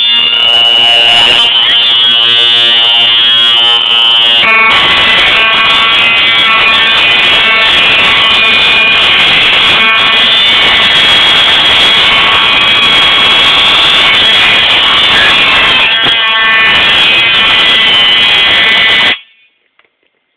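Fire alarm horns sounding continuously and very loudly, set off from a manual pull station. The sound turns fuller and harsher about four seconds in, and it cuts off abruptly about a second before the end.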